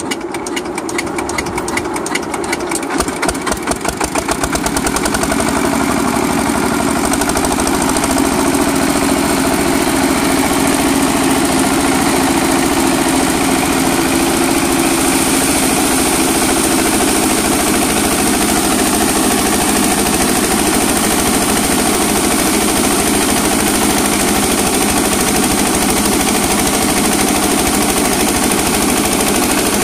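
An old single-cylinder diesel engine catching and running up to speed, its firing beats quickening over the first few seconds, then running steadily as it drives a coffee huller hulling dried coffee cherries.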